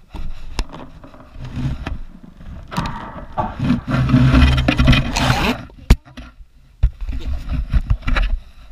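Camera handling noise: irregular rubbing and scraping with low rumbles and thumps, and two sharp knocks about six and seven seconds in.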